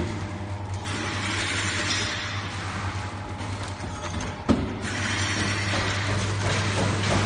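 Automatic sachet water filling and sealing machine running: a steady low hum under a hissing mechanical noise. One sharp knock comes about four and a half seconds in.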